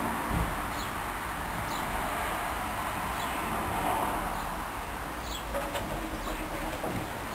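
Hoover Dynamic washing machine in its rinse phase, the drum turning and the clothes and water sloshing with a steady rushing noise. A few faint short high chirps come and go over it.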